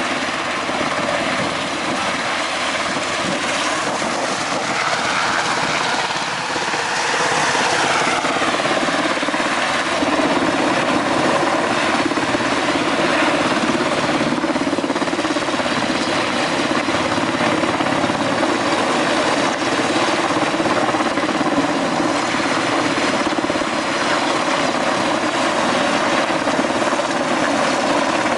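Rescue helicopter hovering close overhead: the steady, loud rotor and turbine noise of a helicopter during a winch rescue. The pitch sweeps downward once, about eight seconds in.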